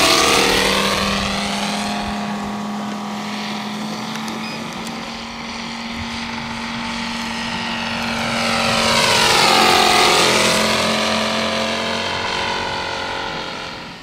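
Scale model plane's O.S. five-cylinder radial glow engine running in flight, a steady multi-toned drone that swells as the plane passes close at the start and again about ten seconds in, fading near the end.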